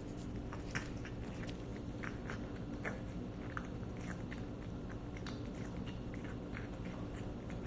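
Cat chewing wet food from a metal bowl: irregular small wet clicks and smacks of its jaws, a few a second, over a steady low hum.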